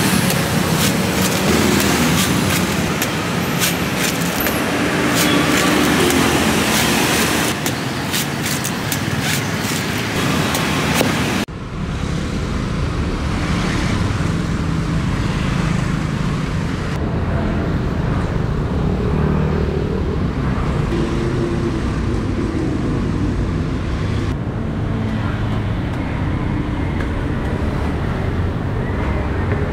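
Repeated sharp machete chops into green coconuts, then, after an abrupt change about eleven seconds in, steady road-traffic rumble from passing vehicles.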